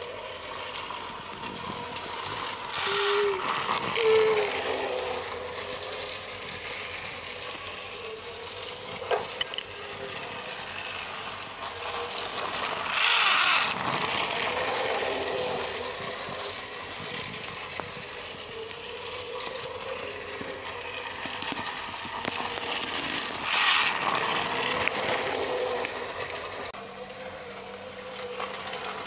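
Motorised toy train in KAI livery running on plastic track: a steady whirring motor with the wheels rattling over the track. It grows louder twice as it passes close by, about halfway through and again about four-fifths of the way in.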